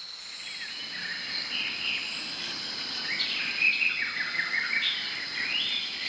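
Tropical forest ambience: a steady high-pitched insect drone with birds chirping and warbling over it through most of the stretch.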